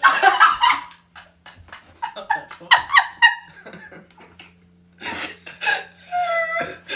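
Stifled giggling and breathing in short spells, with a quieter pause in the middle. A faint steady hum runs underneath.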